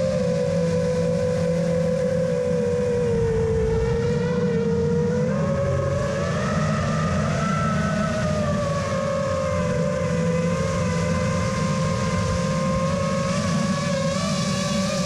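FPV quadcopter's motors and propellers whining steadily, recorded on the drone's own camera. The pitch sags around four seconds in and climbs again about two seconds later, over a low rushing noise.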